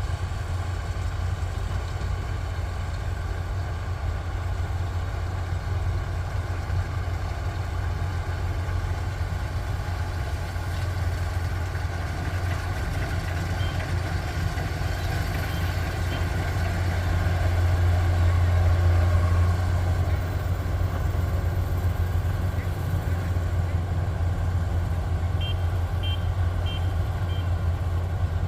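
Kubota rice combine harvester running steadily with a low drone that grows louder for a moment about two-thirds through. Short high beeps sound in two brief runs, one around the middle and one near the end.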